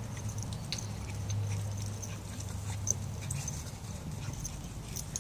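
A Toy Manchester Terrier and a Labradoodle play-fighting, making dog play noises, over a steady low hum and scattered faint high ticks.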